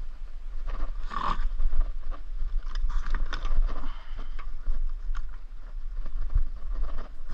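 Shoes and gloved hands scraping and knocking on old slate roof tiles while climbing across a roof, in irregular strokes with a louder scrape about a second in. Wind rumbles on the microphone underneath.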